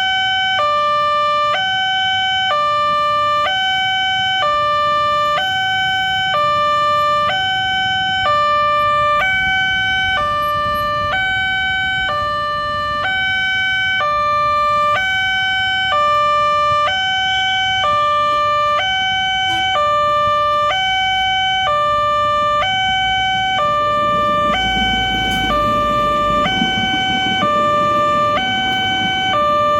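Railway level-crossing warning siren sounding a two-tone hi-lo wail, switching between a lower and a higher pitch about every half second in an even, unbroken cycle. A low rumble swells for a few seconds about three-quarters of the way through.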